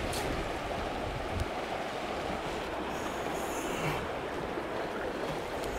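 Small meadow stream flowing, a steady even rush of water, with a faint brief hiss about three seconds in.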